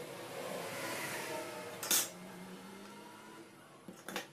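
Metal clinks and clicks from handling the drill chuck, bit and tools: a sharp clink about two seconds in and two quick clicks near the end, with faint scraping between.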